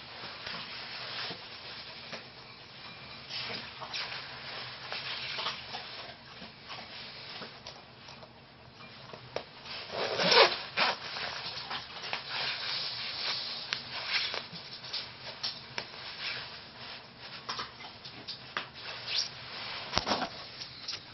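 Padded jacket fabric rubbing and rustling right against the phone's microphone, in an irregular run of scrapes, with a louder scrape about ten seconds in.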